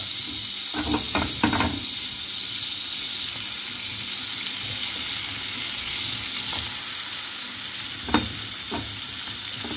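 Margarine sizzling steadily in a hot frying pan. The sizzle grows louder about two-thirds of the way in as chopped garlic goes into the fat. A few short knocks come near the start and one just after that.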